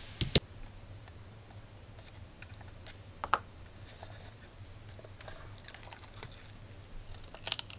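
A plastic handheld multimeter being picked up and handled: a few sharp plastic clicks and knocks, one just after the start, one about three seconds in and several close together near the end, over a faint low hum.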